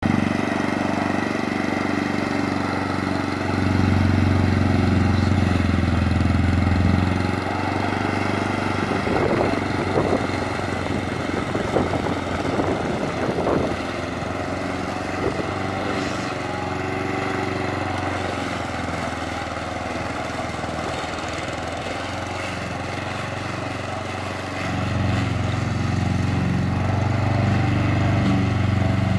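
Honda Izy 466 walk-behind petrol lawn mower running steadily while cutting grass, its engine hum swelling and fading as it is pushed back and forth. A few short knocks come around the middle.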